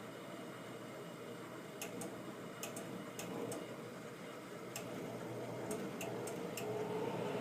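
Air-conditioning unit running with a steady hum, overlaid by about a dozen sharp, irregularly spaced ticks that come more often in the second half.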